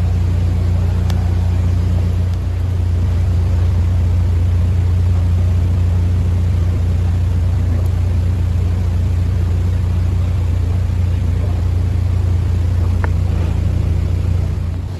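Narrowboat's diesel engine running steadily as the boat moves slowly under a bridge toward a lock: a constant low drone, dipping slightly about two and a half seconds in.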